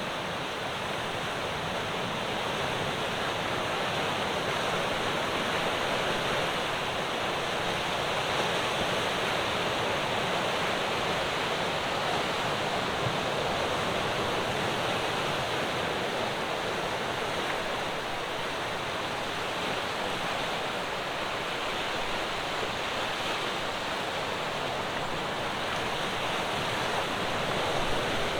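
Ocean waves breaking on a rocky shore: a continuous wash of surf that swells and eases gently.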